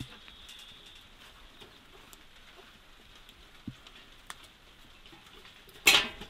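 Small clicks and a knock from handling a metal pail and its wire bail handle, with faint hen sounds behind. Near the end comes one brief, loud clatter.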